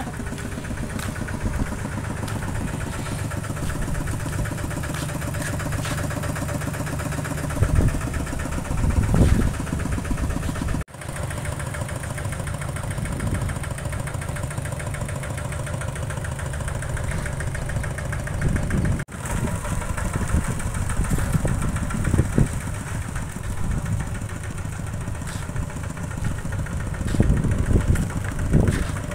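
An engine idling steadily, with a few louder low thumps and two momentary cut-outs about a third and two-thirds of the way through.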